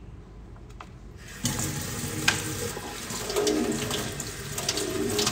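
A kitchen tap is turned on about a second and a half in, and water runs steadily into the sink, with a single knock soon after.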